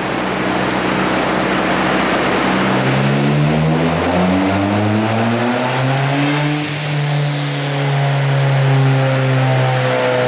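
Turbocharged car engine running under load, its pitch climbing over a few seconds and then holding steady, with a faint high whistle rising about halfway through.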